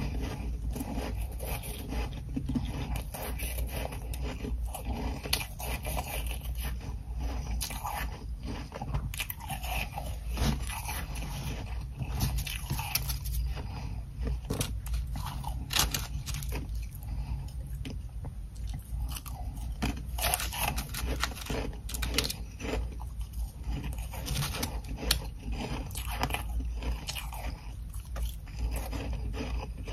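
Close-miked ice eating: bites into ice chunks covered in soft humidifier frost, then repeated crunching and chewing in irregular crackly snaps.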